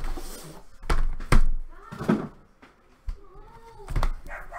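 Aluminium card-box case being slid across a desk and handled, with a sliding scrape at the start, two sharp knocks about a second in and more knocks near three and four seconds. Short wavering cries sound in between.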